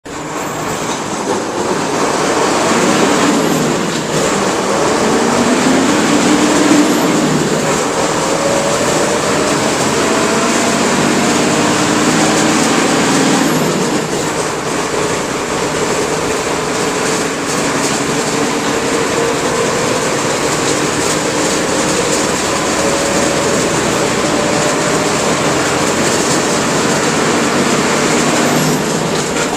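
Mercedes-Benz OF-1721 bus's OM-366LA turbo-diesel engine running under load, its pitch rising slowly as the bus gathers speed, over heavy ride noise. The level dips briefly twice, about 4 and 14 seconds in.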